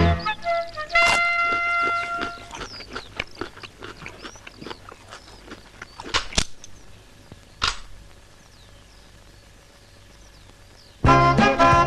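A horn blast with a steady pitch, held about a second and a half near the start, over outdoor background with faint bird chirps. A few sharp knocks follow around the middle. Music with a steady beat starts near the end.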